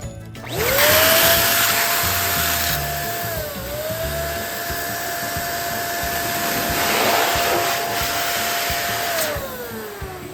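Electric balloon pump's motor spinning up, running steadily as it blows up a balloon, then winding down with a falling pitch near the end. There is a brief dip in speed a few seconds in.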